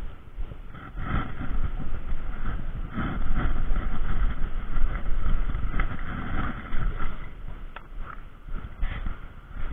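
A road vehicle passing, its sound swelling about a second in and fading after about seven seconds, over a low rumble of wind on the microphone. A single sharp click near the end as a plastic lure box is opened.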